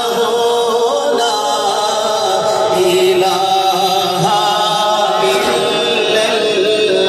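A man's voice chanting a slow, melodic religious recitation through a microphone, holding long notes that waver in pitch.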